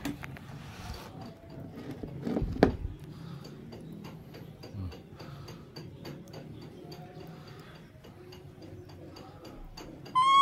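Baby macaque being spoon-fed: a run of small, irregular wet clicks and smacks from its mouth working the food and the spoon, with one loud thump about two and a half seconds in. Right at the end comes a short, high squeak.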